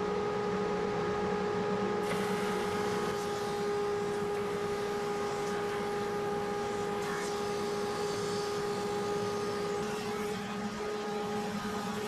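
Drum sander running steadily with its conveyor feeding cabinet door frames under the sanding drum: a steady machine hum and whine over a rushing noise.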